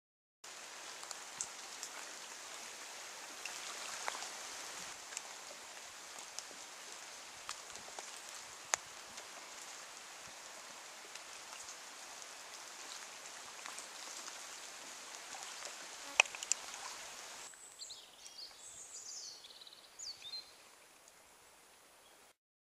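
Steady rain falling on foliage, with scattered sharper drips. About three-quarters of the way through, it cuts to a quieter background where a small bird sings a few short high phrases.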